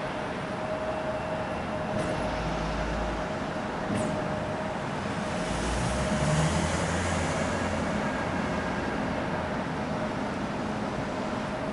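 Steady rumble and hiss of a Boeing 777's jet engines running at low power, with a constant whine; the low rumble swells a little twice.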